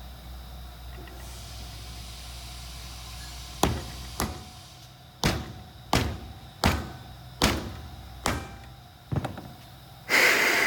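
A run of about eight hard knocks, one every second or less, as metal parts of a pneumatic cylinder are knocked together during assembly, followed near the end by a short, loud rushing noise.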